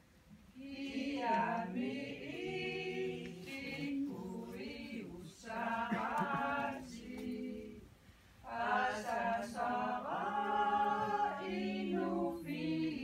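A small group of women singing a cappella together in long sustained phrases, breaking off briefly about five and eight seconds in.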